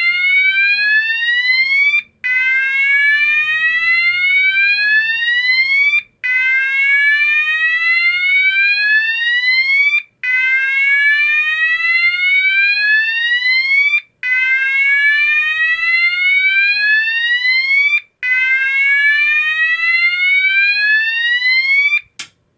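GE AS363 fire alarm sounder playing its slow whoop tone: a rising whoop about four seconds long, repeated with a short gap between each, about six in all. It cuts off with a click near the end.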